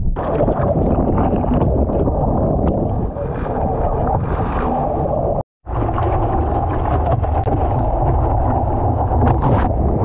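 Ocean white water churning and splashing around a surfboard, with wind buffeting the microphone of a board-mounted action camera: a loud, steady rush. A brief dropout to silence comes about halfway through.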